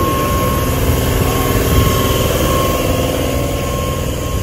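Stabled double-deck electric train with its onboard equipment running: a loud, steady mechanical hum with a constant high tone over it.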